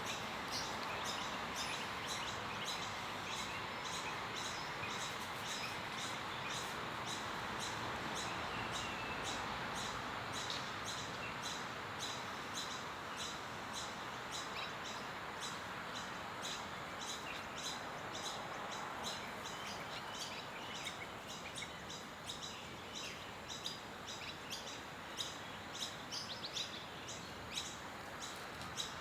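Outdoor ambience: a steady hiss with a short high chirp repeating about two to three times a second throughout.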